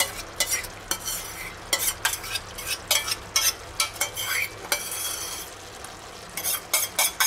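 Minced beef and pancetta sizzling in a pot while tomato paste is scraped out of a steel bowl with a spoon and stirred in with a wooden spoon. Irregular clicks and scrapes of the spoons against bowl and pot sound over the frying hiss.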